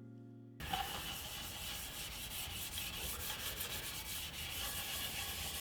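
Rubbing on a wooden piece, a steady scratchy sound that starts about half a second in and cuts off suddenly at the end, typical of sanding or rubbing during finishing.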